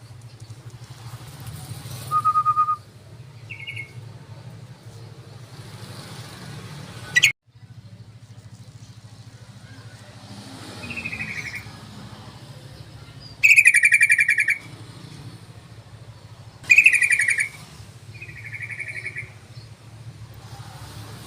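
Yellow-vented bulbul (trucukan) calls: short bursts of rapid, bubbling chatter, repeated several times with the loudest two in the second half. A steady low hum runs underneath, and there is one sharp click about seven seconds in.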